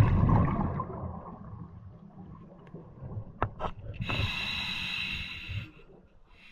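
Scuba diver breathing underwater through a regulator: a loud low burble of exhaled bubbles at the start that fades over the first second, then the steady hiss of an inhalation through the regulator from about four seconds in until shortly before the end.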